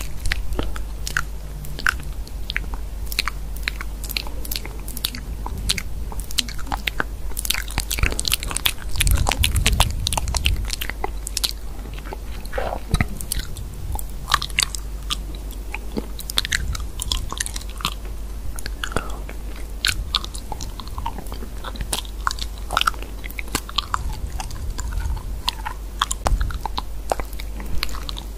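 Rapid, irregular clicking of typing on a phone's on-screen keyboard, over a steady low hum.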